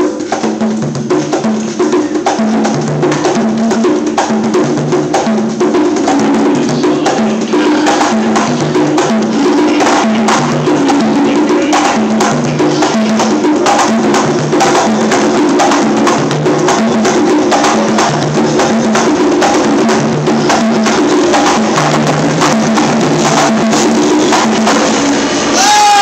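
Conga drums played with bare hands, a fast, steady rhythm of strokes on three drum pitches repeating in a regular pattern.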